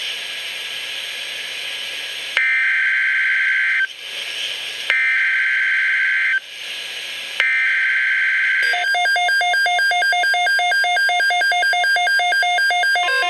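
NOAA Weather Radio Emergency Alert System alert: a few seconds of radio static, then the three bursts of the SAME digital header, a harsh two-tone warbling data screech with a pause of about a second between bursts. About nine seconds in, a loud pulsing electronic alarm tone starts and keeps going.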